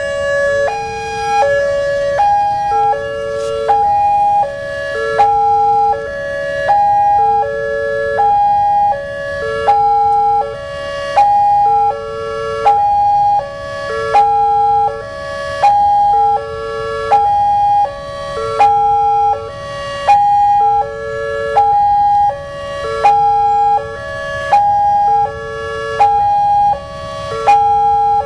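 Indonesian railway level-crossing alarm sounding, a loud electronic tune of three alternating pitches repeating about every two seconds: the crossing's warning that a train is approaching.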